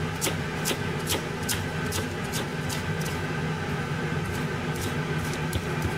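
Kitchen knife chopping green shiso leaves on a cutting board: a run of sharp taps, about two to three a second, thinning out in the second half. A low steady hum runs underneath.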